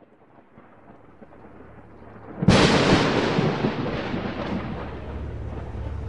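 Cinematic logo-intro sound design: a low rumbling swell that builds to a sudden loud thunder-like boom about two and a half seconds in, which dies away slowly into a low droning bed with a few held tones.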